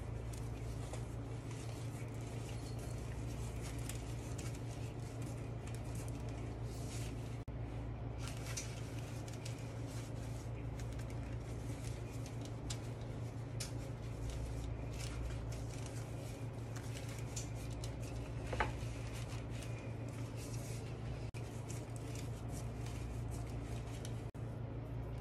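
Faint rustling and crinkling of thin phyllo dough and parchment paper being handled and rolled, over a steady low hum, with one sharper click about 18 seconds in.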